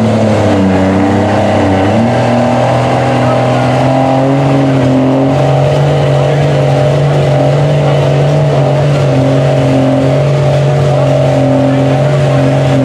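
Lifted Dodge Ram mud truck on tractor tires, its engine running hard under load as it churns through deep mud. The engine pitch dips briefly about a second in, then climbs back and holds steady at high revs.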